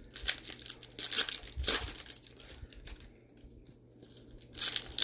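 Foil wrapper of a 2019 Bowman baseball card pack torn open and crinkled by hand. It comes in several sharp crackling bursts in the first two seconds, then a quieter stretch, then another loud burst near the end.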